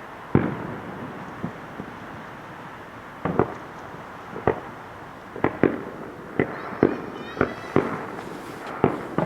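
Aerial firework shells bursting: about a dozen sharp bangs, each with a short echoing tail, spaced a second or more apart at first and coming faster in the second half.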